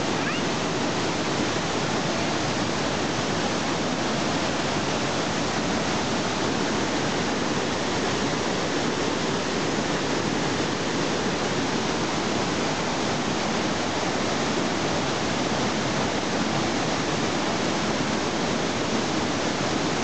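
Steady rushing of a small waterfall pouring over boulders, close by and unbroken.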